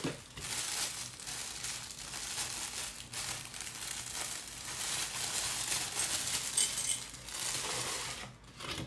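Clear plastic packaging bag crinkling and rustling as it is handled and opened, with irregular crackles throughout, dying away near the end.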